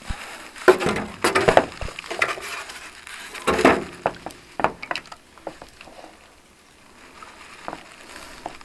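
Plastic housing of a water purifier's cooling unit being handled and pried apart: a series of irregular plastic knocks, clicks and scrapes, thinning out to quiet in the last few seconds.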